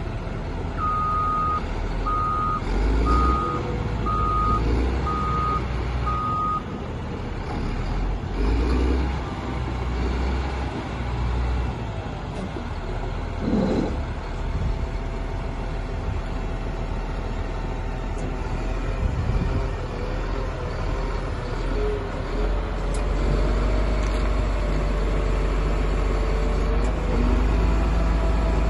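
2009 Cat 140M motor grader's diesel engine running. Its reversing alarm beeps six times in the first few seconds, about once a second, as the grader backs up.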